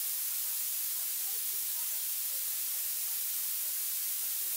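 Steady hiss from the recording chain, strongest in the treble and constant throughout, with faint speech barely showing beneath it.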